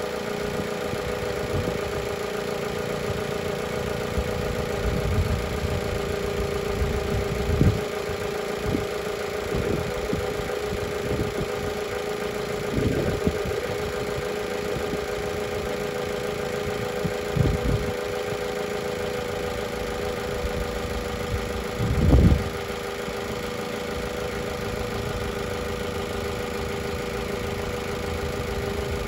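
Car engine idling steadily, with a few brief low thumps.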